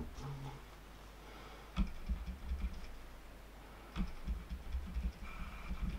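Light clicks and taps from nail-art tools and a bead tray handled on a tabletop, with a few low knocks about two seconds apart.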